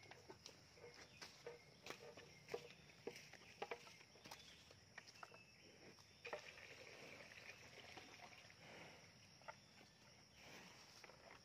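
Faint, irregular clicks and crunches of a cow eating from a container, over a steady high buzz of insects. About six seconds in, liquid poured from a plastic jerry can splashes into the container for a few seconds.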